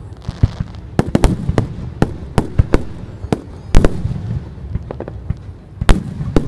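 Aerial fireworks shells bursting in quick, irregular succession: sharp bangs and pops with crackling between them. The heaviest bangs come about four seconds in and near the end.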